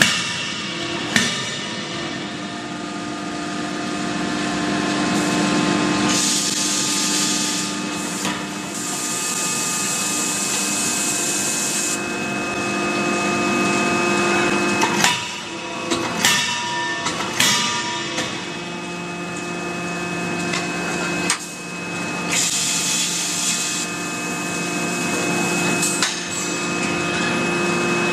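CNC fully hydraulic die forging hammer striking several separate, unevenly spaced sharp blows over a steady machine hum, with a few long bursts of hissing in between.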